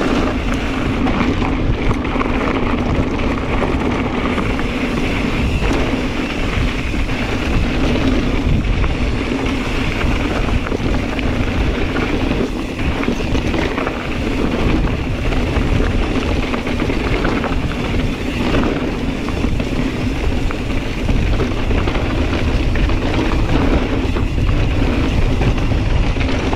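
Wind rushing over the microphone with the steady rumble of a Kona Process 134 mountain bike rolling over a rough dirt trail, with occasional clatters from the bike over rocks.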